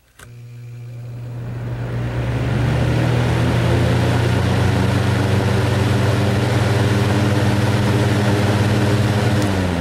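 Duracraft DB-10 box fan switched on with a click: the motor hum starts at once, and the rush of air builds over about two to three seconds as the blades come up to speed, then runs steady. Near the end a second click switches it off, and the hum and air noise begin to die away as the fan spins down.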